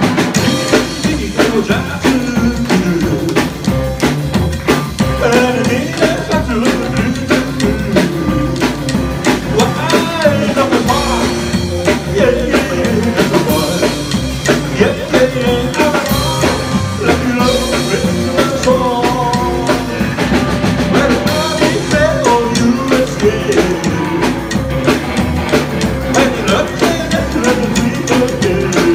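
Rockabilly band playing live: a man singing into a microphone over upright bass, electric guitar and a drum kit keeping a steady beat.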